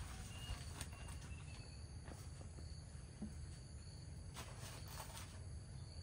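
Faint outdoor ambience: a steady high insect drone, a few thin bird chirps in the first two seconds, and a low rumble, with a few soft knocks.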